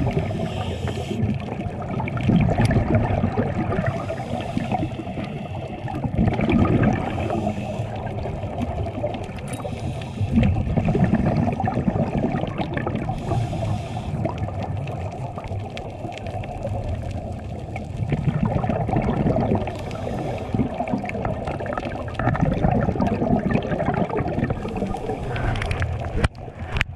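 Scuba divers' breathing heard underwater: muffled gurgling and bubbling of regulator exhaust bubbles, swelling every two to four seconds with each exhalation.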